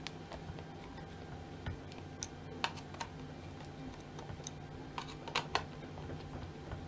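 Small, scattered clicks and ticks of a screwdriver undoing the speaker screws on a Garrett AT Pro metal detector's plastic control box, with a quick pair of clicks about five seconds in.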